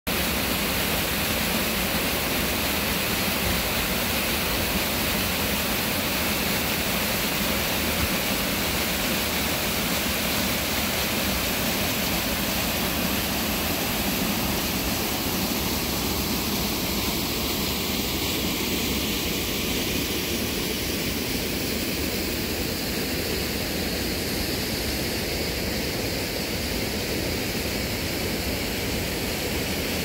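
Small waterfall pouring over rock ledges and foaming across a shallow rocky stream bed: a steady, unbroken rush of water.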